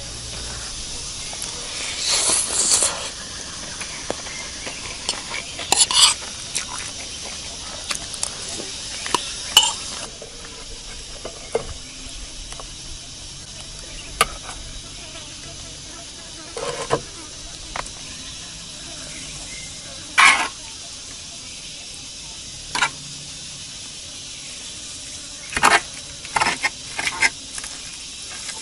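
Cicadas droning steadily and high-pitched, with short intermittent clatters and rustles of things being handled, the loudest about two, six and twenty seconds in and a quick run of them near the end.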